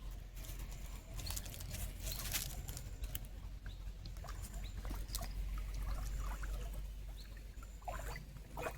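A rakali (Australian native water rat) moving and feeding among fish left on a riverbank: irregular small clicks, nibbles and rustles over a steady low rumble.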